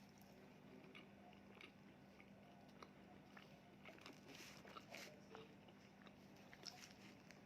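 Faint sounds of a person chewing and biting into fast food: scattered soft, wet clicks and small crunches, a little busier about four to five seconds in.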